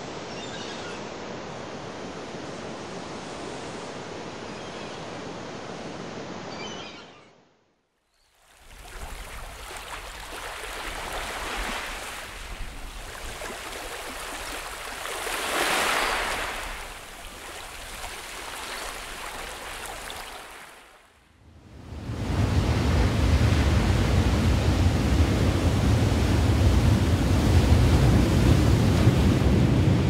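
Ocean waves and surf in three stretches, each fading out briefly before the next. First a steady wash, then a swell that builds to a loud breaking wave about halfway through and recedes. The last third is a louder, deeper rumble of surf.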